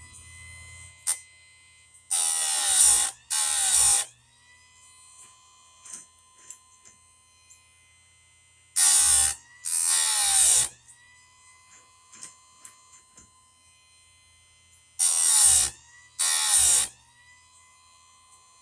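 Electric chainsaw-chain sharpener grinding chain teeth: three pairs of short, harsh grinds about six seconds apart. Between them the motor whines, and its pitch climbs back and settles after each grind as the load comes off the wheel.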